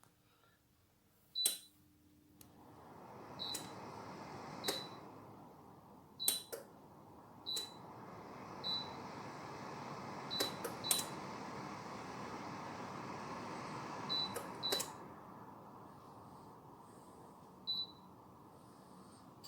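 Dreo smart wall heater's touch control panel giving short high beeps, about a dozen in all, as its buttons are pressed. Its fan blows with a steady rush that starts a couple of seconds in and dies away near the end.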